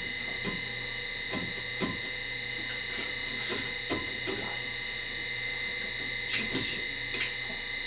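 A steady high-pitched electrical whine at two fixed pitches, from the running electronic equipment, with a few faint clicks and knocks scattered through.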